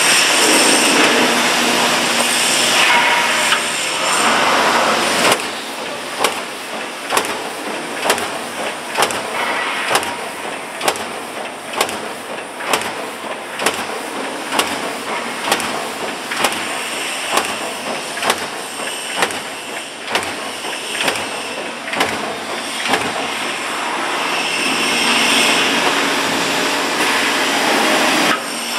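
Vacuum forming machine running on a production line: a loud hissing rush, then a steady series of sharp mechanical clicks about every 0.7 s, with the hissing rising again near the end.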